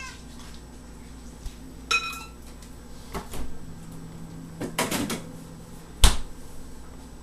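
A cat meows briefly at the start and again about two seconds in, then a few scattered knocks follow, the loudest a sharp knock about six seconds in.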